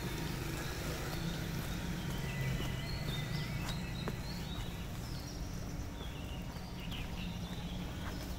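Outdoor ambience: a steady low rumble with short, high bird chirps and whistles scattered through.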